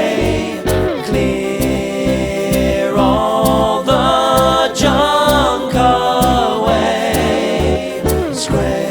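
A song playing: layered, choir-like singing over a steady bass beat of about two pulses a second.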